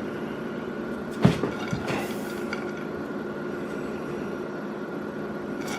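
A few light clinks of kitchenware, a little over a second in, over a steady background hum.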